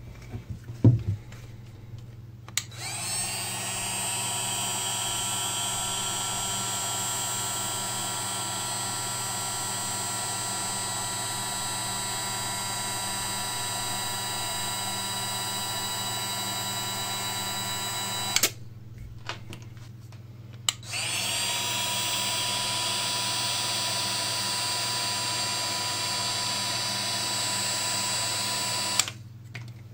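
Parkside PHLGA 20-Li A1 cordless hot air gun running as it shrinks heat-shrink tubing: its fan motor rises briefly in pitch as it spins up, then holds a steady whine. It runs for about sixteen seconds, stops for a couple of seconds, then runs again for about eight seconds and cuts off near the end.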